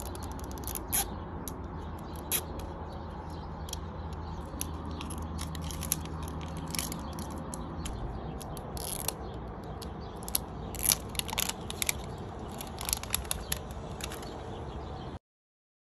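Printed plastic wrapper being peeled and torn by hand off a Mini Brands capsule ball: irregular crinkles and crackles over a steady low hum. The sound cuts off abruptly shortly before the end.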